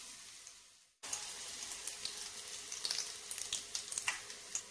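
Besan-battered potato bondas deep-frying in hot oil: a steady sizzle with scattered crackles and pops. The sizzle fades away just before a second in, then comes back abruptly.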